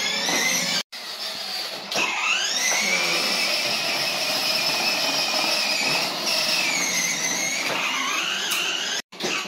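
Electric ride-on toy motorcycle's 12-volt drive motor whining as it drives. Its pitch climbs about two seconds in as it speeds up, holds steady, then sinks as it slows near the end, with two brief dropouts.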